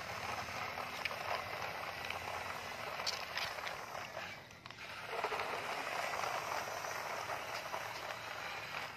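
Plastic toy dump truck wheels rolling over rough concrete, a steady rattling scrape that pauses briefly about halfway through.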